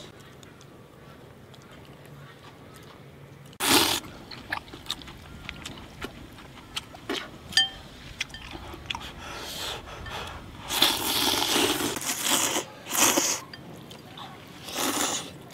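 People slurping noodles and hot broth from bowls, in several loud, noisy slurps, the longest a bit past ten seconds in. Between the slurps come small clicks and crunches of eating.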